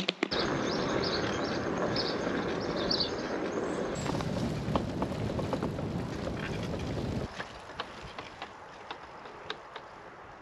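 Wind buffeting the microphone: a loud, rushing rumble that drops away about seven seconds in. A quieter outdoor background with scattered faint clicks is left after it.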